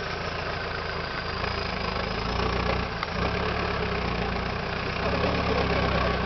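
4x4 SUV's engine running at low revs as the vehicle crawls slowly forward on a muddy track, a steady low rumble that swells slightly a couple of times.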